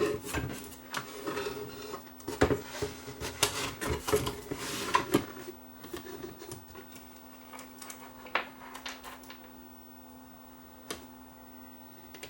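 Knocking and clicking as a radio chassis is handled and fitted back into its Bakelite cabinet, busiest in the first five seconds, then thinning to occasional single clicks. A faint steady hum runs underneath.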